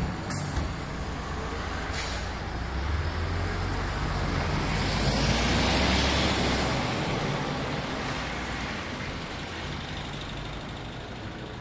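Heard from inside the cabin, a 2015 MAN Lion's City G articulated bus stands with its engine idling. Short hisses of released compressed air come just after the start and again about two seconds in. A broader hiss follows, with the engine hum growing louder around the middle before easing off.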